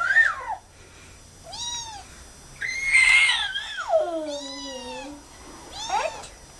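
Kitten meowing repeatedly: several short, high-pitched meows and one long, drawn-out meow that falls in pitch around the middle.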